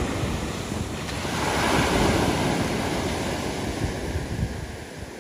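Small ocean waves breaking at the shore and washing up the sand. The wash swells about two seconds in and then ebbs away, with wind buffeting the microphone.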